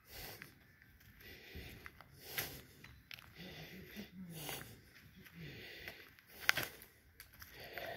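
Faint distant voices, with scattered clicks and rustles of footsteps and a handheld phone; the sharpest click comes about six and a half seconds in.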